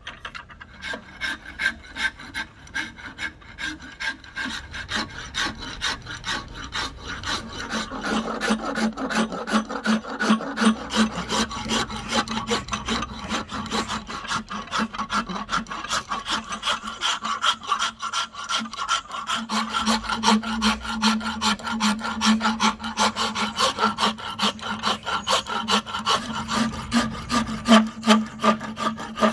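A coarse steel wood rasp shaping a Siamese rosewood axe-handle blank, with a quick, steady run of back-and-forth scraping strokes. The strokes grow louder over the first several seconds.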